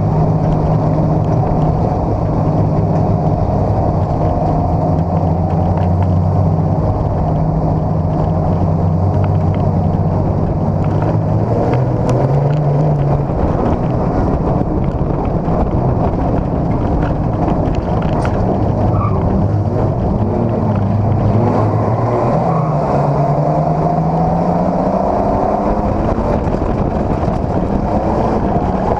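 Dirt-track race car's engine heard from inside the cockpit, running hard on track; its note drops and climbs back twice as the throttle is lifted and reapplied.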